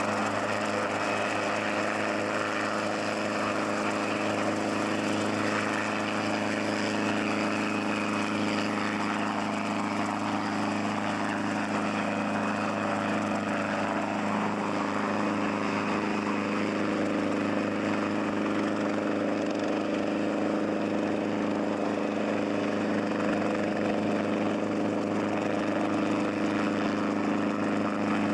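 Hughes 269-series piston training helicopter hovering and manoeuvring low: a steady engine-and-rotor drone, its pitch shifting a little partway through.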